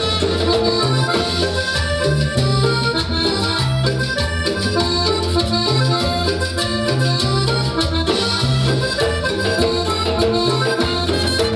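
Live cumbia band playing an instrumental passage, with trumpets over a steady repeating bass line, timbales and congas.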